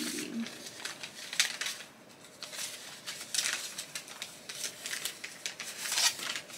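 Paper rustling and crinkling in short, irregular bursts as a note is handled, the loudest about a second and a half, three and a half, and six seconds in.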